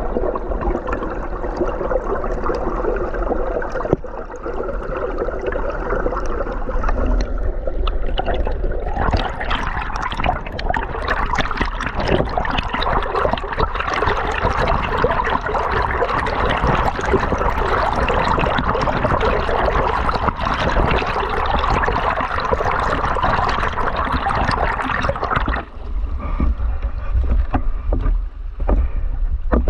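River water rushing and gurgling under a steady low rumble, turning louder and more hissing from about nine seconds in until about 25 seconds, then dropping back.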